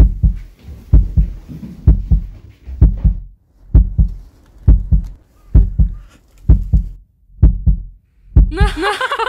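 Heartbeat sound effect: a loud, regular lub-dub double thump, about one beat every 0.9 seconds. Near the end a wavering, pitched voice-like sound comes in.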